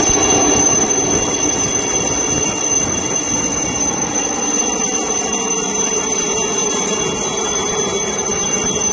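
Military helicopter hovering low overhead: dense, steady rotor and engine noise with a constant high whine.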